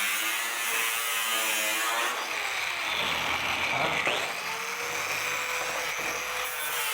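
Small angle grinder with a thin cutting disc cutting an X into sheet metal, its whine wavering up and down in pitch as the disc bites and eases off.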